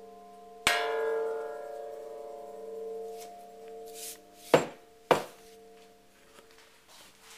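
A struck metal bell-like object ringing: it is hit sharply under a half-second in, over an earlier ring still sounding, and rings on with a long fading tone. Two sharp knocks come at about four and a half and five seconds, after which the ringing is much fainter.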